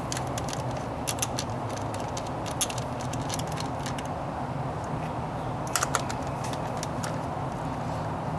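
A screwdriver working the distributor cap's retaining screws makes scattered light clicks of metal on metal, with a small cluster about six seconds in. A steady low hum runs underneath.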